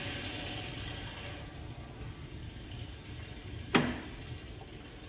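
Steady rush of water circulating through a jewelry laser welder's water-cooling system, with one sharp click a little under four seconds in.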